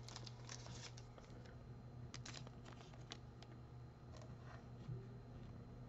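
Faint rustling and light ticks from trading cards and a thin plastic card sleeve being handled, coming in a few short clusters, over a low steady hum.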